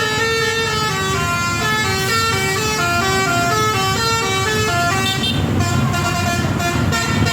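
Indonesian 'telolet' bus horn, a multi-tone musical horn, playing a quick tune of stepped notes, a few notes a second. After about five seconds the tune fades under a noisier rattle.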